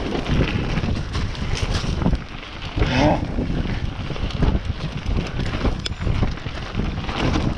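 Wind buffeting the camera microphone over the rumble and rattle of mountain bike tyres and frame on a rough trail descent, with many small knocks and a brief higher-pitched sound about three seconds in.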